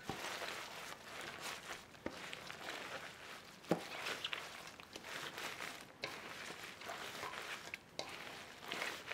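Gloved hands tossing and squishing small green onions (jjokpa) coated in thick red pepper seasoning in a stainless steel bowl. The handling makes an uneven rustling broken by a few sharp knocks, the loudest a little under four seconds in.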